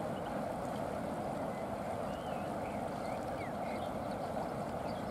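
Steady rushing of water pouring through an overflow channel between a canal and a river, running full because the water locks upstream are open. A few faint high bird chirps sound over it.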